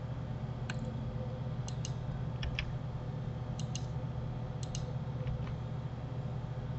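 Light clicks of a computer mouse and keyboard, about a dozen, several in quick pairs, over a steady low hum.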